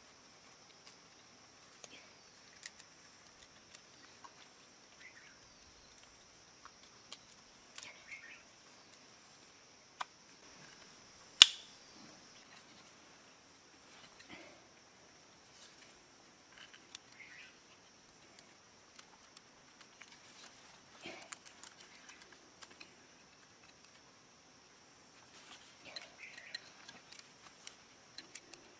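Hands working green bamboo trap parts and wrapping them with cord: small scattered clicks and rustles, with one sharp click about a third of the way through. A steady high insect drone runs behind.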